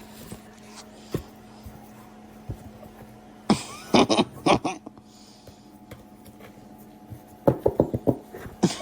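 A kitten's short cries, in two bursts about three and a half seconds in and again near the end, over a steady low hum.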